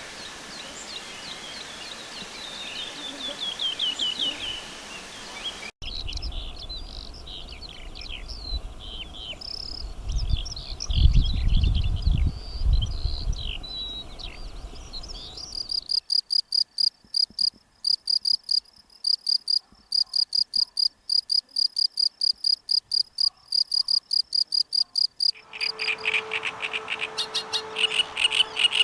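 A run of short wild-animal sound recordings cut one after another. First a bird sings in chirpy phrases. Then comes a dense chorus of calls over a low rumble, then an even, rapid series of high chirps about four a second, and near the end more song over a steady low drone.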